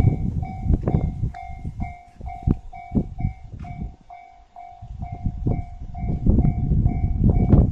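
Japanese level-crossing warning bell ringing steadily, about two and a half strikes a second, with the crossing held closed for a following train. Under it a train's rumble and wheel clacks over rail joints fade about four seconds in and build again near the end.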